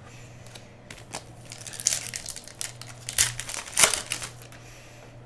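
Foil wrapper of a 2017 Panini Elite Extra Edition baseball card pack crinkling as it is torn open. The crackling comes in a run of sharp strokes, loudest about two to four seconds in.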